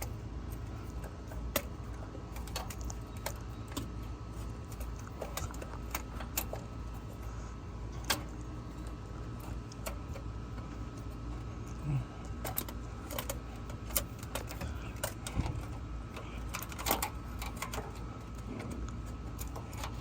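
Scattered light metallic clicks and knocks as hands work an oil filter loose, over a steady low hum.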